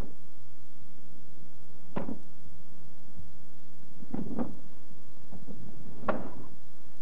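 Short, sharp slaps and knocks of karate blocks and strikes, arms and gi sleeves meeting in a two-person drill. One hit comes about two seconds in, a quick pair follows around four seconds, and another comes near six seconds.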